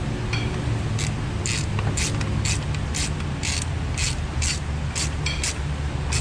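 Ratchet wrench being worked in short strokes, its clicking coming about twice a second, over a steady low hum.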